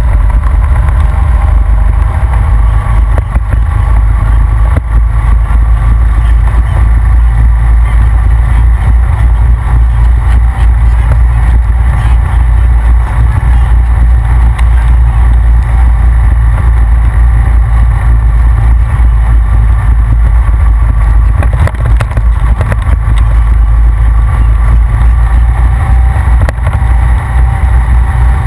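Honda Rancher ATV running at a steady cruising speed on a dirt road, a loud low rumble with a faint steady whine above it.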